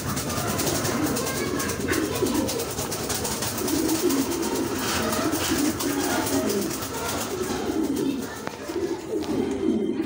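Ringneck doves cooing over and over in repeated low phrases, with a short lull near the end.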